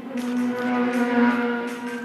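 Background music: one long held note that swells to its loudest about a second in, then eases.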